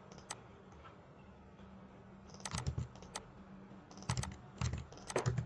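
Computer keyboard typing: a couple of single keystrokes near the start, a gap of about two seconds, then short quick runs of key clicks.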